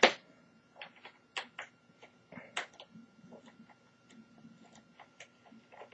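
Small screwdriver clicking and ticking against a laptop case screw as it is undone: irregular light clicks, the sharpest one right at the start, over a faint steady high tone.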